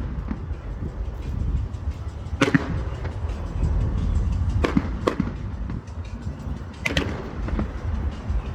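Fireworks display: sharp bangs of bursting shells, coming in close pairs roughly every two seconds, over a steady low rumble.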